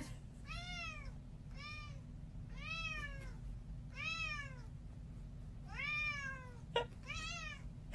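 Cat meowing six times, short calls that rise and then fall in pitch, spaced about a second apart with a longer pause near the middle. A brief click comes just before the last meow.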